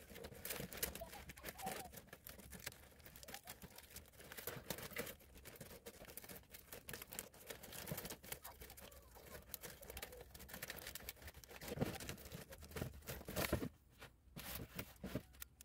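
Palm-leaf strips rustling and crackling irregularly as they are pulled tight, one by one, through a woven palm chair cover.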